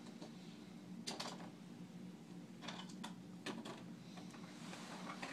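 Toys clattering and rustling as a small child rummages in a toy chest: a few scattered light clicks and knocks, over a faint steady low hum.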